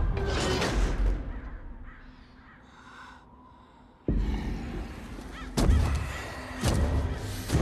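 Crows cawing. A sudden deep boom comes about four seconds in, followed by two heavy thuds.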